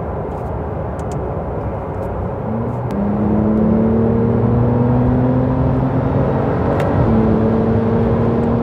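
Porsche 911 Carrera's twin-turbo flat-six engine accelerating over steady road noise. About three seconds in, the engine note rises and climbs steadily through a gear, dips briefly at a shift near seven seconds, then climbs again.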